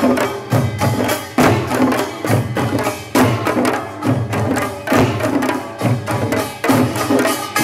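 Korean nongak farmers' band playing: drums beaten in a fast, driving rhythm with strong accents, and metal gongs ringing over them.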